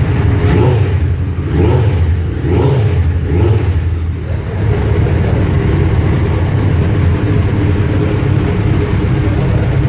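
Suzuki Hayabusa's inline-four engine running through Roncar Coyote TRS aftermarket exhausts, blipped a few times in the first few seconds, then idling steadily.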